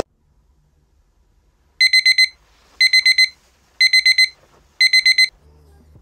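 Electronic alarm clock beeping its wake-up alarm: four quick high beeps in a row, repeated four times about once a second, starting about two seconds in.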